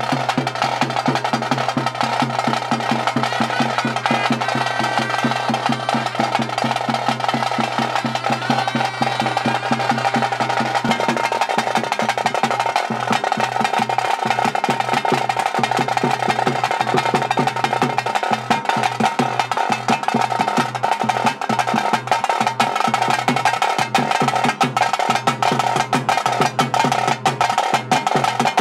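Fast, dense ritual drumming accompanying a Bhuta Kola possession dance, with a steady droning tone held underneath. The low drone breaks up into short pulses about eleven seconds in while the drumming carries on.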